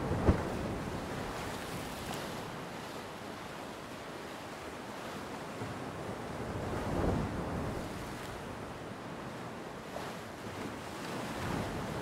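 Ocean surf washing steadily onto the beach, with wind buffeting the microphone. A single sharp thump comes a fraction of a second in, the loudest moment, and a wave swells up about seven seconds in.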